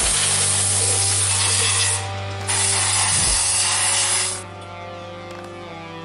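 Aerosol brake cleaner spraying in two long hissing bursts, with a short break about two seconds in and stopping a little after four seconds, over background guitar music.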